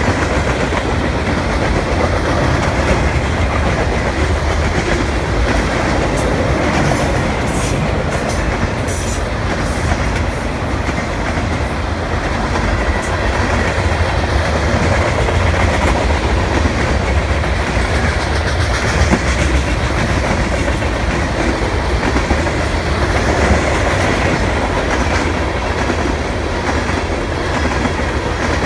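A CN freight train's cars rolling past at close range, a steady loud rolling noise throughout, with a cluster of sharp high clicks or squeaks about six to ten seconds in.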